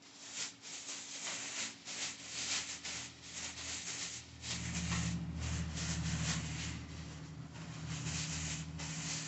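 Tissue paper rustling and crinkling in a run of short crackles as it is pulled out of a gift bag. A steady low hum comes in about halfway through.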